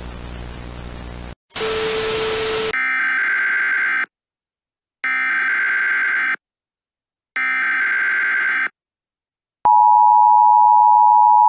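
Emergency Alert System broadcast tones. A static-laden hum cuts off, and a short burst of hiss follows. Then come three identical bursts of SAME digital header data about a second apart, and about ten seconds in the steady two-tone EAS attention signal starts, the loudest sound.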